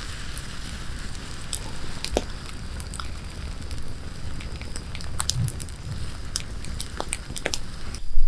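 Wood fire crackling, with irregular sharp snaps over a low rumble of burning.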